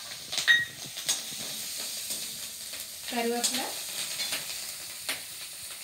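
Green chillies frying in hot oil with a mustard-seed and dal tempering in a kadai: a steady sizzle while a steel spatula stirs, with a few sharp clicks.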